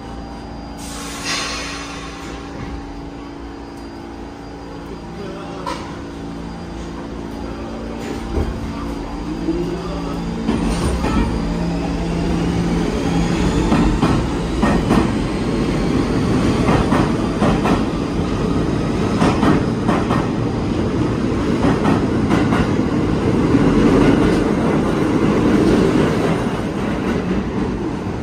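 R46 subway train pulling away from a standstill: a short hiss about a second in, then a rising motor whine as it picks up speed. It grows louder, with wheels clattering on the rails.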